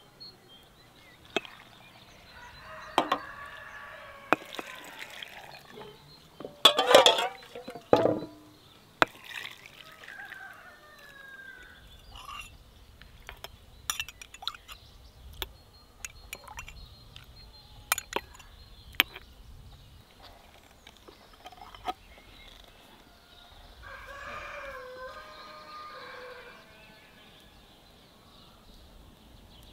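A rooster crowing loudly about seven seconds in, with other chicken calls before and later on. Sharp glass clinks are scattered through it as glass jars are handled and filled.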